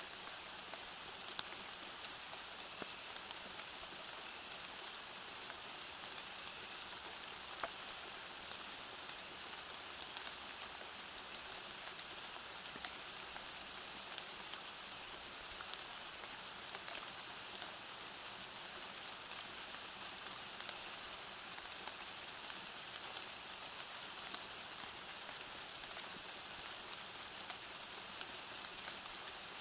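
Steady rain: an even hiss of rainfall with a few sharper individual drop ticks scattered through it.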